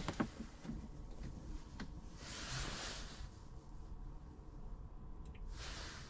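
Sharp plastic clicks and knocks as a phone is set into a car air-vent phone holder and its clamp arms close on it, the loudest just after the start. Then a soft rustle about two seconds in and another near the end.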